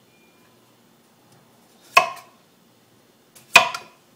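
Two sharp knocks of kitchenware set down on the counter, about a second and a half apart, each with a brief ring.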